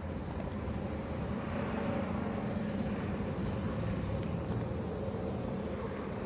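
Steady low rumble of city background noise, vehicle-like, with a faint steady hum.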